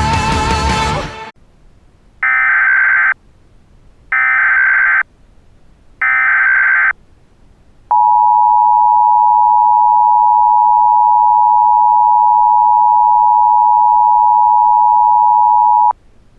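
Music cuts off about a second in. Then come three short bursts of Emergency Alert System SAME header data, each about a second long with a gap between them. After them the EAS attention signal, a steady two-tone 853 and 960 Hz tone, holds for about eight seconds and cuts off sharply.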